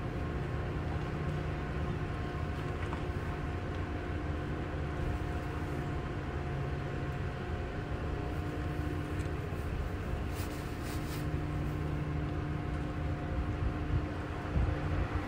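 Steady mechanical drone of an aircraft in flight: a low rumble under several steady hum tones, with a brief crackle about ten seconds in.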